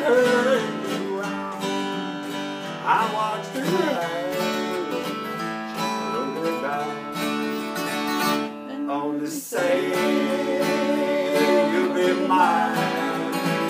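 Two acoustic guitars strummed together, playing chords of a song, with a brief break about two thirds of the way through.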